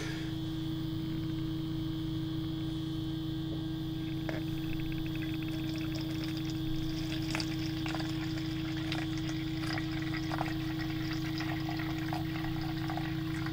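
Liquid filter-bacteria culture poured from a bottle in a thin, steady stream into a plastic measuring jug, trickling as the jug fills. A steady low hum runs underneath.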